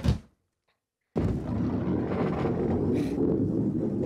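A soft thump, then about a second of near silence, then a sudden loud rumble that runs on steadily. It is the rolling of a ball down a skittle alley, which the puppets take for a "thunder goat" clattering junk on the moon.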